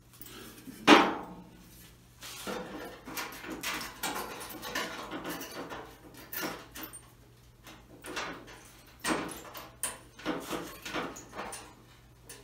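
Sheet-metal patch strip being bent by hand over a pipe and pressed against a car fender: a sharp metal clank about a second in, then scraping and rattling of the sheet metal, with a few more loud knocks near the end.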